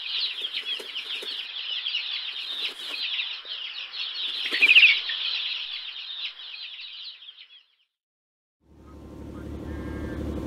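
Many small birds chirping and twittering in a dense chorus, with a few brief wing flutters, fading out about three quarters of the way in. After a short silent gap, a motorboat engine comes in and runs steadily near the end.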